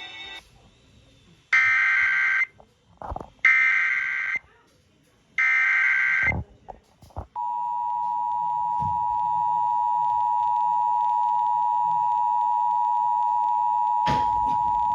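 Emergency Alert System signal over the radio: three SAME header data bursts, each a harsh buzz about a second long with about a second between them, then the steady two-tone EAS attention signal held for about eight seconds. The sequence announces an incoming alert, here a National Weather Service severe thunderstorm warning.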